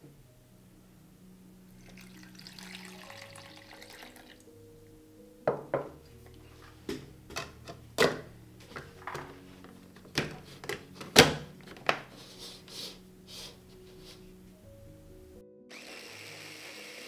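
Kitchen preparation sounds over soft background music: a short stretch of running water, then a series of sharp knocks and clinks, the loudest about eleven seconds in. Near the end a motor starts and runs with a steady whir.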